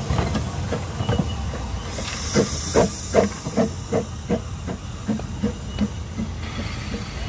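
Narrow-gauge steam train running, with a steady rumble underneath. About two seconds in there is a brief burst of steam hiss, followed by a regular beat of about two and a half knocks a second that fades out near the end.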